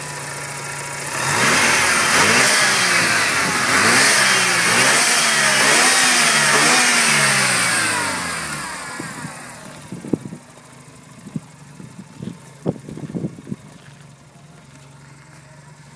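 Mazda RX-7's 13B twin-turbo rotary engine, with an aftermarket exhaust, blipped from idle through a series of quick revs that rise and fall about once a second, then drops back to a lumpy idle. As it settles, several sharp pops stand out.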